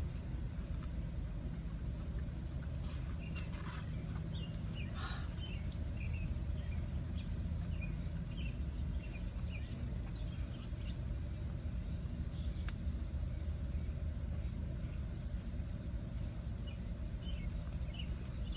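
Steady low rumble of a vehicle, with short faint bird chirps scattered through it.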